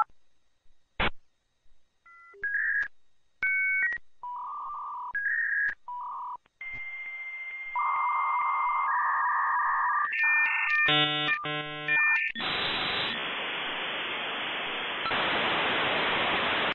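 Dial-up modem connecting: a click, short beeping tones, then a long steady tone and shifting screeching handshake tones with a quick rhythmic burst. From about twelve seconds in it gives way to a loud, even hiss of static.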